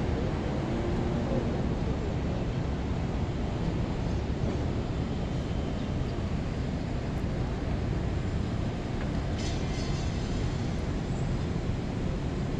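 Steady city traffic noise from the streets far below, mixed with wind buffeting the microphone. A brief high-pitched squeal about nine and a half seconds in.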